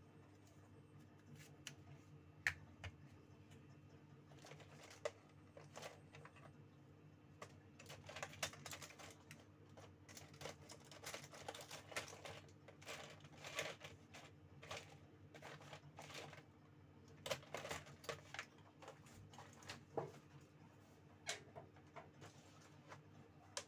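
Faint, irregular small clicks, taps and scrapes of plastic as a Nokia TA-1059 feature phone is handled and opened by hand. There is a sharp click about two and a half seconds in and a busier run of scratchy handling through the middle.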